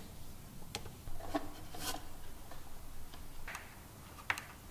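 Small hand-tool sounds of a screwdriver working screws into wiring terminals and a wooden base: light clicks near the start and near the end, with short scraping rubs in between.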